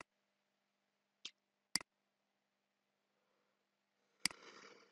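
Computer mouse clicking four times, single sharp clicks at uneven spacing: one at the start, two close together about a second and a half in, and one near the end, with near silence between.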